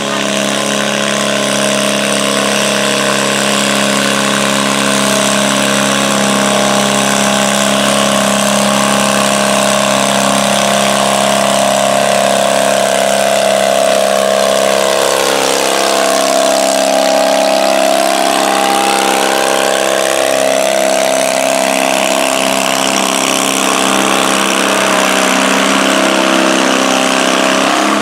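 A garden tractor's engine running hard and steady under load while it pulls a weight-transfer sled in a tractor pull.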